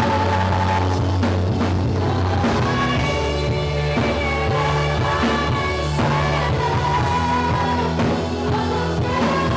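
Live worship band playing a song: several singers on microphones over bass guitar.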